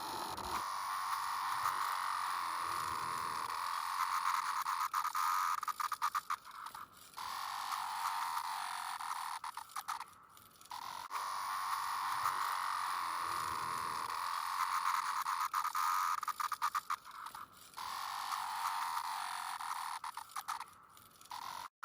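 Chorus of Brood X periodical cicadas: a continuous droning buzz that dips briefly several times and swells back.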